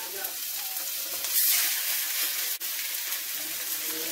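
Curry-seasoned chicken pieces sizzling as they are laid into a smoking-hot stainless steel wok with a little oil. The sizzle gets louder about a second and a half in.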